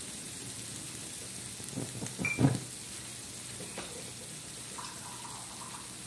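Spice paste with curry powder and chili powder frying in oil in a non-stick wok: a steady sizzling hiss. A few spatula scrapes and knocks against the pan come about two seconds in.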